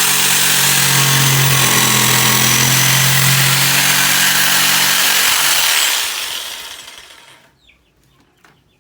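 Total 800 W electric jigsaw running and cutting a tight curve with its orbital (pendulum) action set to 0. The trigger is released about six seconds in, and the motor winds down over a second or so.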